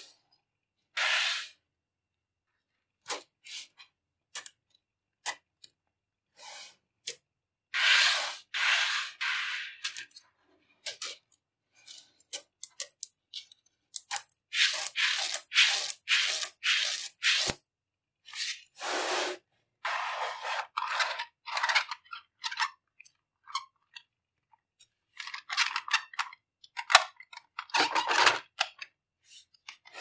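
Small magnetic balls clicking and rattling against one another in short irregular bursts, with single sharp clicks and pauses between them.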